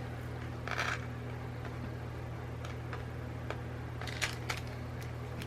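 A packet of beads being handled: a short rustle and a few light clicks, over a steady low hum.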